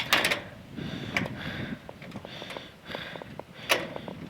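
A door being unlocked and opened: sharp latch clicks with stretches of scraping and rattling between them.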